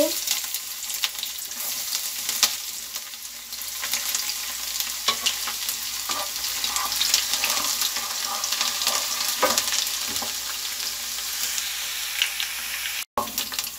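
Chopped garlic and dried red chillies sizzling and crackling in hot oil in a nonstick kadhai, the tempering (tadka) stage, with a plastic ladle stirring and now and then clicking against the pan. The sound cuts out for a moment near the end.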